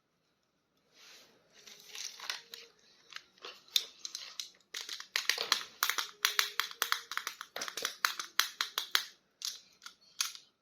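Plastic toy packaging crinkling and crackling as it is handled and opened, starting about a second in and getting busier from about halfway.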